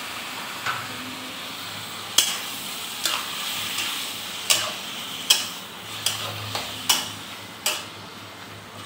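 Tomatoes and onions sizzling in oil in a steel kadhai while a spoon stirs them, knocking and scraping against the pan about once a second.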